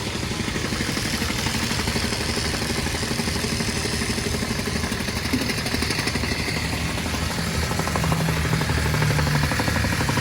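An engine running steadily with a fast, even pulse, a little louder near the end.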